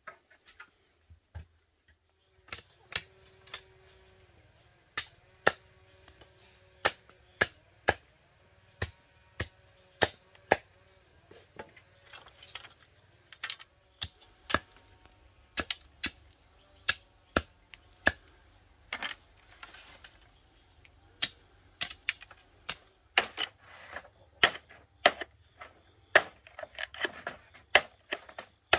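A long run of sharp clicks or snaps, irregular, about one or two a second and sometimes in quick pairs, over a faint steady hum.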